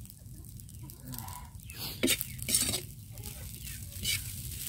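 Metal spatula scraping and turning fried rice in a metal wok, in a few short scrapes about two seconds in and another near the end.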